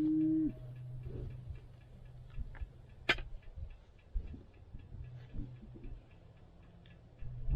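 A cow's moo cuts off about half a second in. After it comes a steady low hum with faint, evenly spaced ticking and a single sharp click a little after three seconds.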